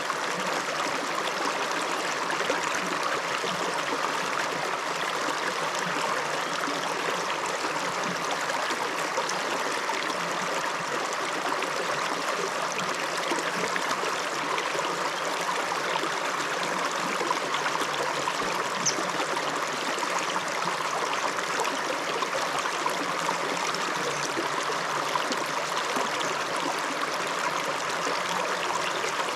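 A river's running water: a steady, even rush of flowing water.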